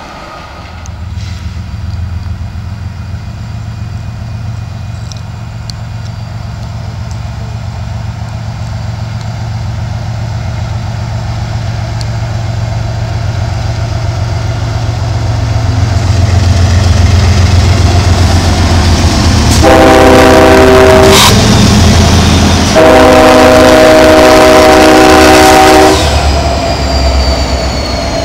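Union Pacific diesel freight locomotives approaching, their low engine rumble growing steadily louder. About twenty seconds in, the horn sounds a chord of several tones, first a short blast of about a second and a half, then a longer one of about three seconds, with another blast starting at the very end.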